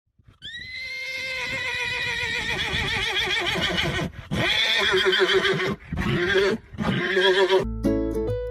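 Horse whinnying: one long quavering neigh, then several shorter ones.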